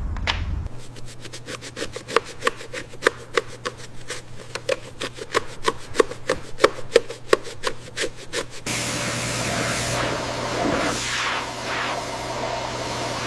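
Hand sanding: rapid rubbing strokes of abrasive on a hard surface, about five a second. About nine seconds in, they stop abruptly and a steady hiss takes over.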